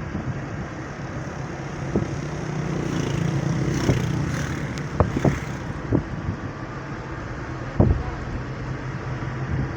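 A motor vehicle runs steadily, with a louder swell of noise around the middle and several sharp knocks scattered through it.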